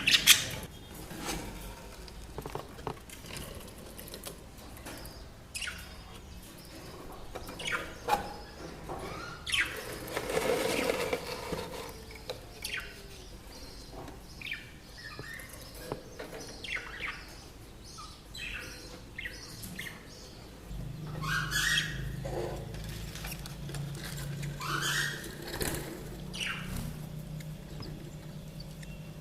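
Budgerigars giving short chirps and rising calls, with bouts of wing flapping and scattered sharp clicks and knocks. A low steady hum joins about two-thirds of the way through.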